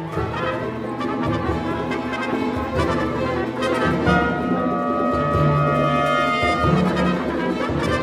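Full orchestra playing contemporary classical music, with the brass section to the fore; the sound swells at the start, and long notes are held from about four seconds in until near six and a half.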